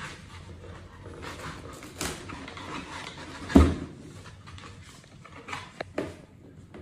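Cardboard box and packaging being handled: rustling with scattered knocks, one loud thump about three and a half seconds in, and a few sharp clicks near the end.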